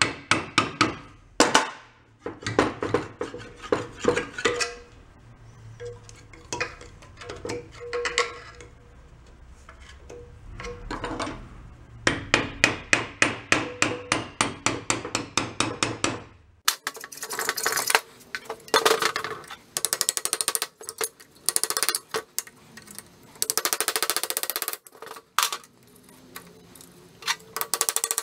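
Small hammer tapping metal on an antique tiller engine's crankcase in quick runs of light blows with short pauses, working stuck parts loose.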